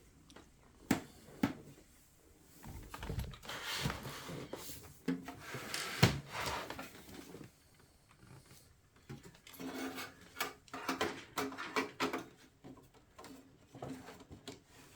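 Hands handling a computer and its parts: two sharp clicks about a second in, then rustling, rattling and knocking with a louder knock around the middle.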